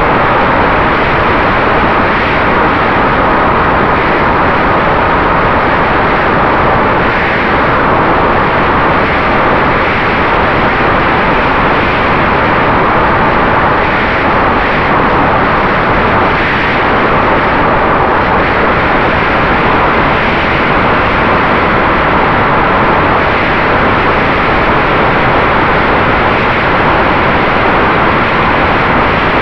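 Steady rush of wind over the onboard camera mixed with a faint steady whine from the electric motor and propeller of a RiteWing Mini Drak flying wing in fast flight.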